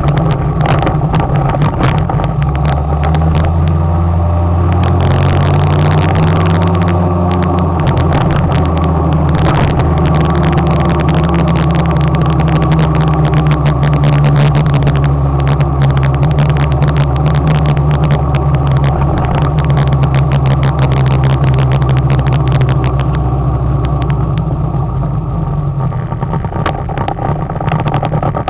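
Motor scooter engine running under way, with wind and road noise. The engine note rises as it picks up speed a few seconds in, holds steady, then drops near the end as it slows.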